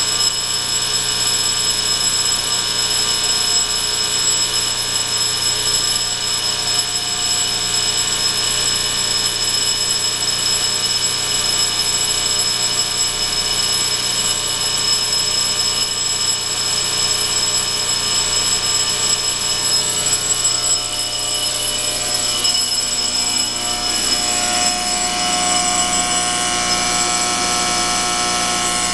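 1966 Cincinnati 701-202 fire alarm sounding continuously, a steady unbroken drone made of many stacked tones. Its tone shifts a little about two-thirds of the way through.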